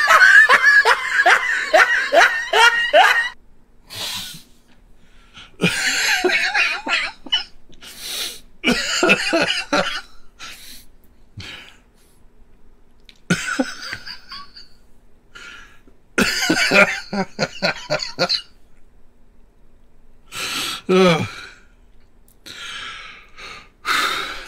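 A man coughing, sputtering and laughing in fits after getting a carbonated energy drink up his nose. It opens with a quick run of laughs, then comes as separate bursts of coughing every second or two.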